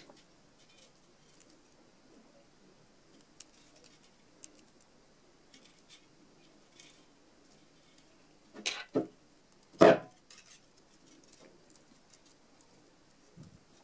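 Small scattered clicks and rustles of glass beads and thin wire being handled while a beaded sepal is wired onto a rose stem, with two louder brief handling noises a little past the middle.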